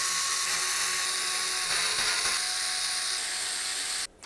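Small electric screwdriver running steadily as it drives out an expansion-slot bracket screw, a constant motor whine that cuts off suddenly about four seconds in.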